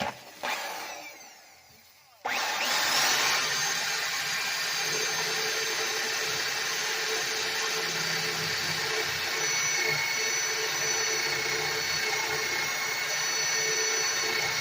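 Rockwell Model 82 electric drill: a short burst that fades away, then about two seconds in the motor starts and runs steadily at speed with a high whine.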